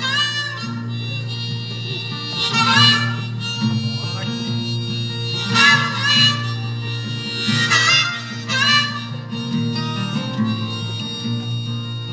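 Harmonica solo played over a steady guitar accompaniment, swelling into loud phrases every couple of seconds.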